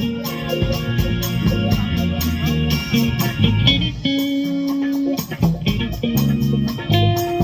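Live band playing an instrumental groove: guitar over bass and a steady drum beat.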